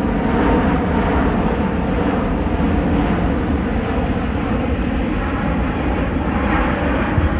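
Airbus A380-800's four Rolls-Royce Trent 900 turbofans at takeoff-climb power: a steady, deep jet roar as the airliner climbs away after takeoff.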